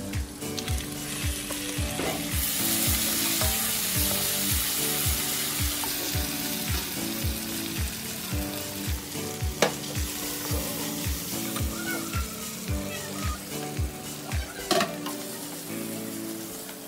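Chopped onion, garlic and meat sizzling in oil in a nonstick frying pan, stirred with a wooden spatula, with sharp knocks about ten seconds in and near the end. Background music with a steady beat plays over it.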